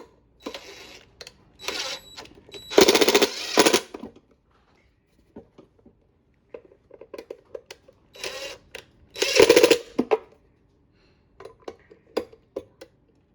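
Power screwdriver run in short bursts, fastening screws during the reinstallation of a dryer motor. It goes as several rapid pulsing runs, the longest and loudest about three seconds in and again about nine seconds in, with light clicks of parts being handled in between.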